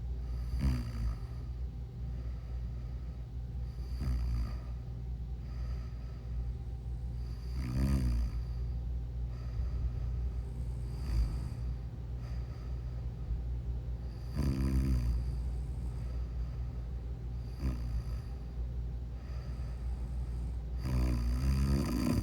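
A sleeping person snoring, a rasping snore about every three to four seconds, some louder than others, over a steady low hum.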